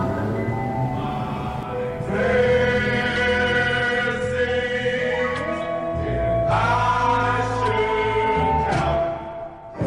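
Background music of a choir singing long held chords, with the chord changing twice and a brief drop in level near the end.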